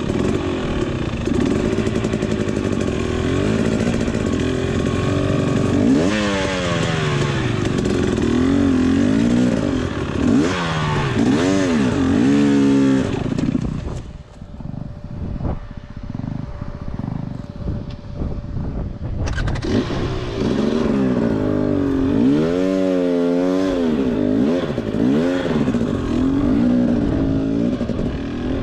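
KTM 250 XC-W two-stroke dirt bike engine being ridden, the revs rising and falling again and again. About halfway through it drops to a quieter, steadier note for several seconds, then picks up revving again.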